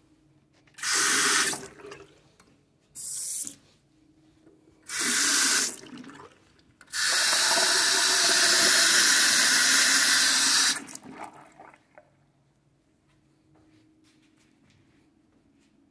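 Two-handle bathroom sink faucet running into the basin: three short bursts of water, then a steady stream for about four seconds before it is shut off.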